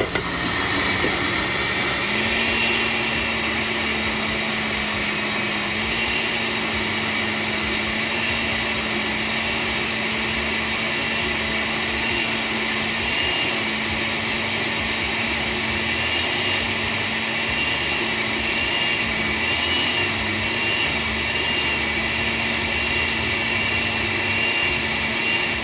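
Electric kitchen blender or mixer grinder running steadily at speed, its motor hum stepping up slightly in pitch about two seconds in and then holding.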